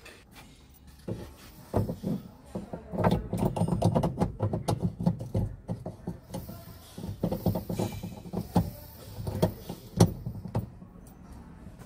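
Irregular clicks and knocks of plastic and metal parts being handled and fitted as a new ignition switch and key cylinder is installed on a pickup's steering column. The clatter starts about a second in and goes on until shortly before the end.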